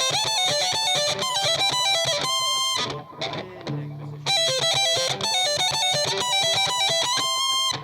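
2013 Gibson SG Future electric guitar on its middle pickup, played high-gain through an Outlaw Widow Maker distortion pedal into a Marshall Origin 50 amp. It plays a fast single-note lead riff that ends on a held, screaming note, and the phrase comes twice with a short pause between.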